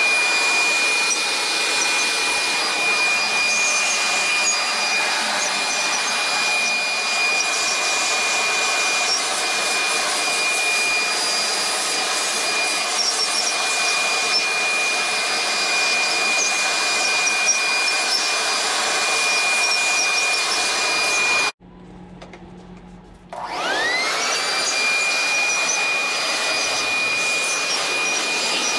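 Corded electric leaf blower running with a steady high whine, blowing water off a wet engine block. About 21 seconds in it cuts off suddenly. About two seconds later it starts again, its whine rising as the motor spins up to speed.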